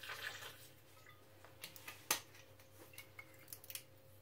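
Apple cider vinegar trickling into a blender jar, fading out in the first moments. Then it is quiet, with a few faint clicks and one sharp tap about two seconds in.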